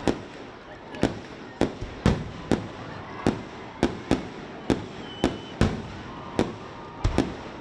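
Fireworks display: a rapid series of sharp bangs, roughly one or two a second, with faint crowd voices underneath.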